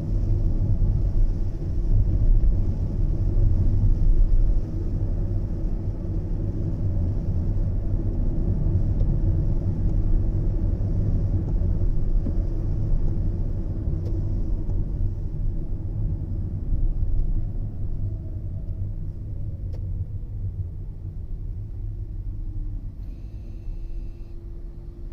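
Strong typhoon wind buffeting the phone's microphone: a heavy low rumble that swells and eases in gusts, slackening somewhat in the last few seconds.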